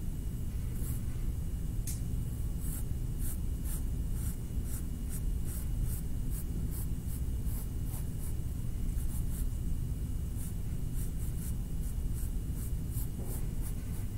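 A drawing tool scratching across paper in short, separate strokes, about one to two a second with a brief pause partway through, as lines of a cartoon rabbit are sketched. A steady low room hum runs underneath.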